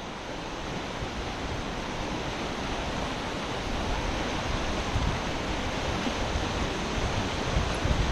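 Fast-flowing river rushing over rapids: a steady, even rush of water.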